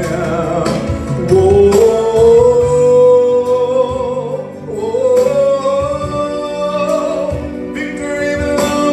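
Gospel worship song: a male vocalist holds long, slightly wavering notes into a microphone over recorded backing music.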